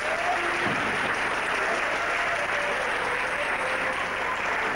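Audience applauding steadily, a long unbroken round of clapping for a contestant.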